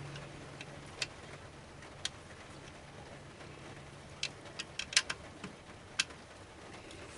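Irregular sharp clicks and taps of hand tools and metal hardware being handled: single clicks about a second and two seconds in, a quick run of five or six just past the middle, and one more near the end.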